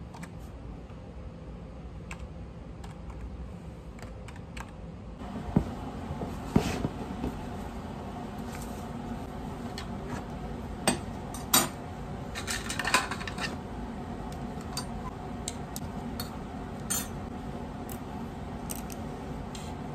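Light tapping on a computer keyboard for the first few seconds. Then a handful of sharp metallic clinks and clatters as metal forceps and other small lab tools are set down on a hard benchtop, over a steady low room noise.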